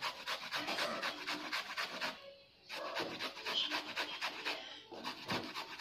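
An unripe saba banana being grated on a stainless steel box grater: quick rasping strokes, about six or seven a second, with short pauses about two seconds in and near the end.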